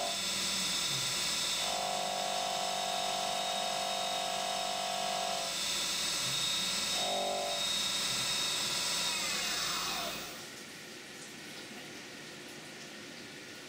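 CNC mill spindle whining at speed under flood coolant as a 45-degree chamfer mill cuts a steel gas block, with a stronger tone coming in for stretches as the tool engages. About ten seconds in the spindle winds down with a falling whine and the machine goes quieter.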